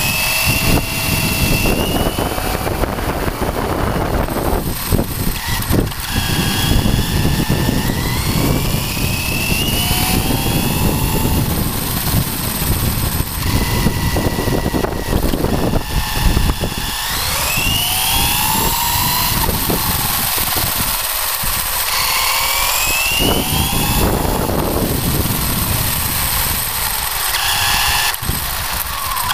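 Onboard sound of a Traxxas Slash electric RC truck driving: the motor and drivetrain whine rises and falls in pitch, over and over, as it speeds up and slows down. Under it is a steady rumble of tyres rolling over concrete.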